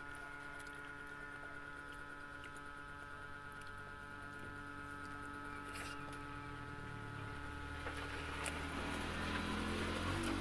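Soft eating sounds: a person chewing and picking up sticky rice and fried tofu with her fingers, with faint scattered ticks and squishes over a steady hum. A broader, louder sound swells up over the last few seconds.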